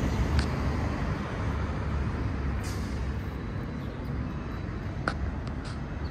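Street traffic: a steady rumble of passing vehicles, with a short hiss about two and a half seconds in and a few sharp clicks near the end.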